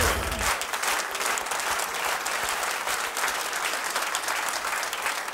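Studio audience applauding steadily. The theme music's last bass-heavy note cuts off about half a second in.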